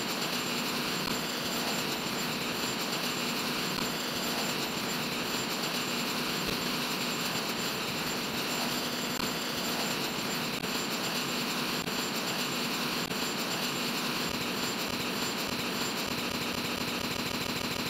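Steady jet aircraft engine noise: an even rush with a thin, high steady whine.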